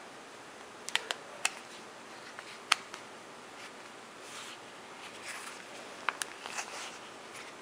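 Handling sounds of a silicone case being stretched and pushed onto an iPhone 3GS: a few sharp clicks and taps in the first three seconds and again about six seconds in, with soft rubbing of silicone between them.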